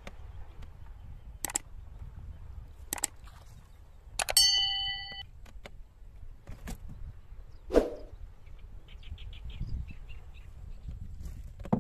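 Sharp knocks every second or two from a bamboo punting pole striking the wooden boat as it is poled along. One knock, about four seconds in, rings on briefly with a clear metallic clang. Faint bird chirps come near the end.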